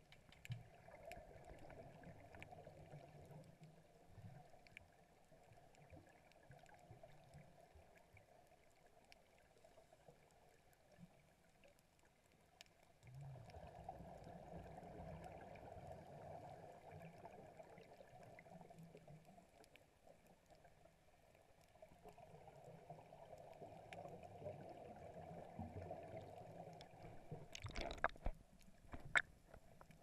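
Muffled underwater sound through a sealed camera housing: scuba divers' exhaled bubbles gurgling in three long bursts, with a few sharp knocks near the end.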